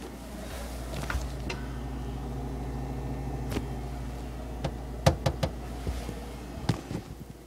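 Open refrigerator with a steady low hum, and several sharp plastic clicks and knocks in the second half from the shelves and crisper drawer area.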